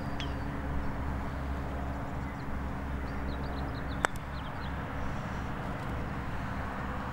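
A putter strikes a golf ball once, a sharp click about four seconds in, over a steady low background rumble.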